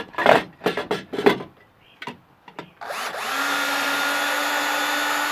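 Cordless drill driving a screw through the back of a steel electrical junction box into plywood. A few sharp knocks and clicks of the drill and box being handled come first. About three seconds in, the drill motor spins up and runs at a steady whine.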